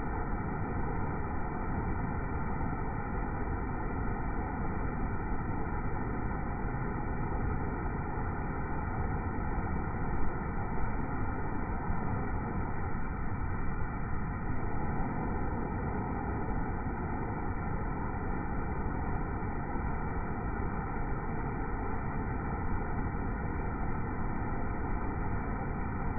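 Waterfall rushing steadily, slowed down by iPhone slow-motion playback so that it sounds deep and muffled, with nothing above the low and middle range. A brief louder splash or knock about ten seconds in.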